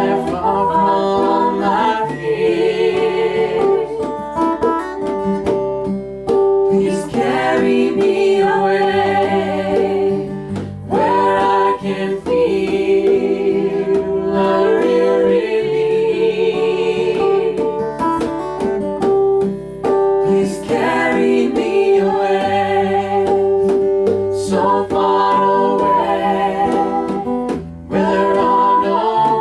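Folk-rock band music: acoustic guitar with fiddle and singing, long wavering notes held over a changing bass line.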